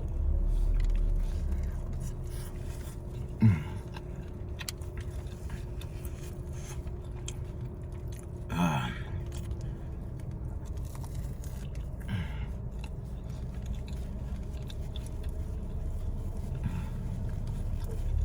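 A person eating a meatball sub: chewing and handling the sandwich, over a steady low hum. Three short sounds drop in pitch, about a fifth, halfway and two-thirds of the way in, the first a sharp spike and the loudest.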